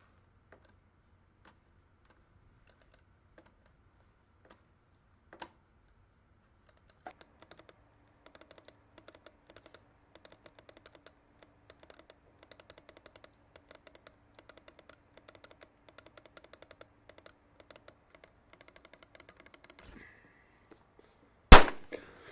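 Laptop keyboard keys clicking: a few scattered presses at first, then fast, continuous typing for about thirteen seconds. Near the end a single sudden loud bang, much louder than the typing.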